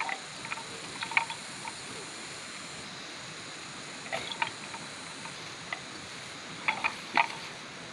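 Horns of two young water buffalo knocking together as they butt heads: three bursts of sharp clacks, about a second in, around four seconds, and near the end, over a steady background hiss.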